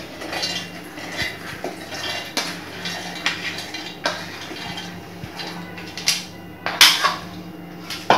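Chana dal poured and spooned from a bowl into a steel mixer-grinder jar: a steady rattling patter of grains landing in the steel jar, with a few sharper knocks near the end.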